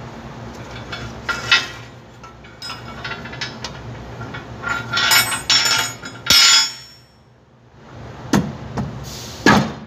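Wrench and metal hand tools clinking and knocking on a car's rear wheel hub bolts. Scattered metallic clicks and rattles are densest about five to six and a half seconds in, followed by a short lull and then two sharp knocks near the end.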